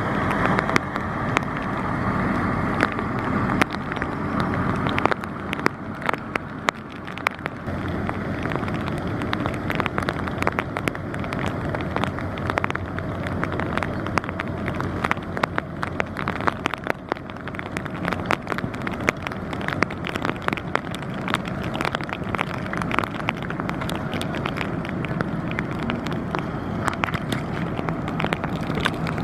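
Low, steady engine drone of an inland vessel's diesel, with dense crackling wind noise on the microphone over it.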